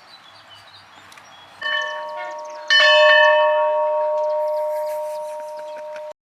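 A bell struck twice, about a second apart, the second strike louder. It rings on with several clear tones, slowly fading until it cuts off abruptly near the end.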